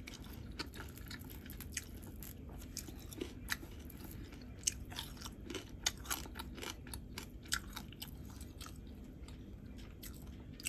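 Close-miked eating sounds of fried fish: quiet, irregular crisp crackles and clicks as the fish is broken apart by hand and chewed.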